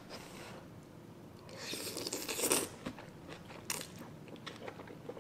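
A mouthful of spicy instant noodles slurped in once, a hiss of about a second near the middle, followed by soft chewing and small wet mouth clicks.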